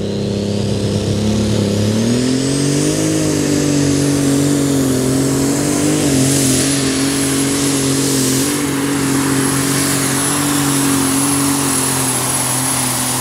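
Super Stock pulling tractor's turbocharged diesel engine under full load during a pull. Its pitch climbs over the first few seconds and then holds steady, with a high, steady turbo whistle over it.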